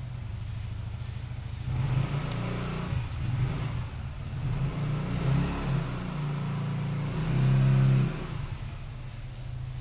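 A motor vehicle engine running and revving, getting louder about two seconds in and loudest shortly before the end, then dropping back to a low steady hum.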